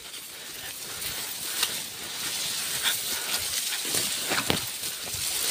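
Dry tall grass rustling and crackling as people push through it on foot, with a few sharp snaps of stems, the loudest near the end.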